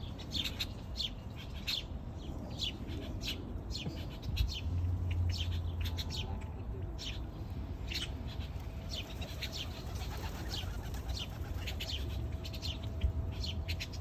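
Small birds chirping, many short high notes in quick, irregular succession, over a low rumble.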